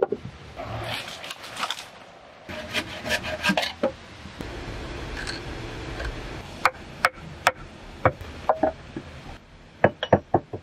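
Hand woodworking sounds: scraping and rasping of a hand auger and tools against wood, then sharp wooden knocks. Near the end comes a quick run of several knocks as a wooden peg is tapped into a log.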